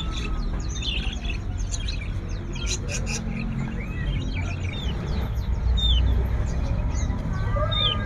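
Many caged birds chirping and calling over one another, short quick chirps and sweeping whistles throughout, over a steady low background rumble.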